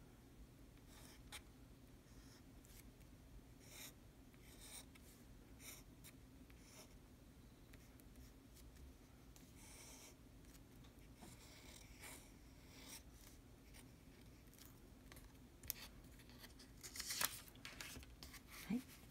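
Fountain pen nib scratching faintly across paper in short separate strokes as characters are written. Near the end, a louder rustle of paper as the top sheet is moved away.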